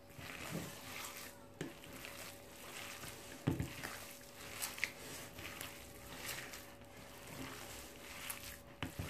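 Bare hands kneading and squeezing raw minced meat with spices and chopped coriander in a bowl: irregular wet squishing. A dull thump comes about three and a half seconds in.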